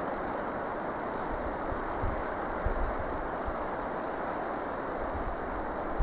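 Wind blowing across the microphone: a steady rushing with a few low buffets, about two seconds in and again at the end.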